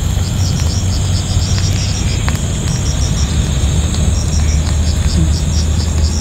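Crickets chirping in runs of short high chirps, about four or five a second with short pauses, over a steady high insect buzz. A steady low hum runs underneath.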